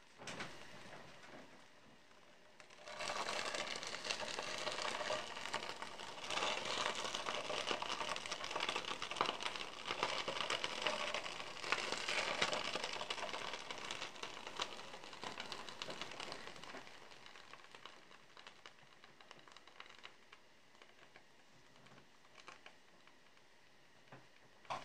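A block of butter sizzling and crackling as it melts and foams in hot oil in a deep pan, the water in it boiling off. The sizzle starts about three seconds in, stays loud through the middle and dies down to a faint crackle near the end.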